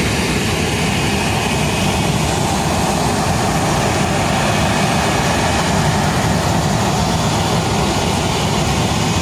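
Steady, loud jet aircraft noise on an airport apron: an even roar with a faint high whine mixed in, holding level with no sharp events.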